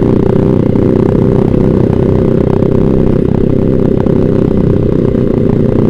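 Yamaha Vixion single-cylinder four-stroke motorcycle running through a Proliner TR1 short aftermarket exhaust while being ridden, a loud, steady deep exhaust note.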